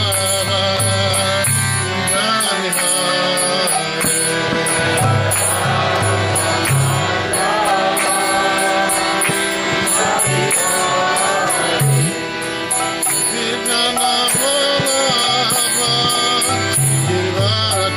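Kirtan: voices chanting a mantra over a steady harmonium drone, with drum strokes and small hand cymbals keeping a continuous rhythm.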